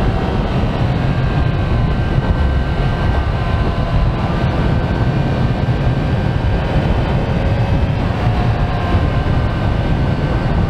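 Kawasaki Z900's inline-four engine running steadily at cruising speed, with wind rushing over the microphone.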